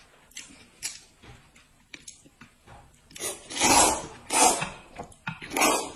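Noodles being slurped: three loud slurps in the second half, after a few faint clicks and smacks of eating.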